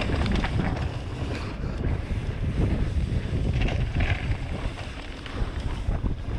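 Wind buffeting the microphone of a mountain biker riding fast down a dirt trail, with a steady rush of tyre noise. Short knocks and rattles come from the bike going over bumps.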